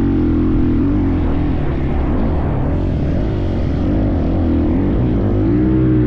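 Husqvarna dirt bike engine running at speed, its pitch rising and falling again and again as the throttle is opened and closed.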